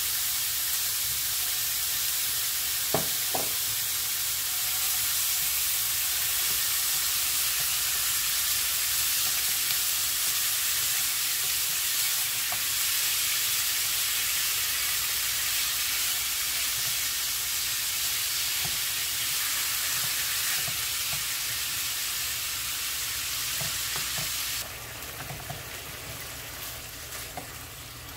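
Ground beef sizzling in a hot frying pan while a wooden spoon stirs and breaks it up. Two sharp knocks about three seconds in; near the end the sizzle drops suddenly quieter.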